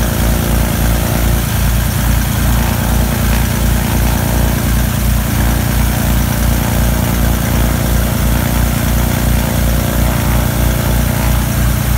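Twin-engine light aircraft's propeller engines idling on the ground, a steady run with a regular low throb of about three beats a second.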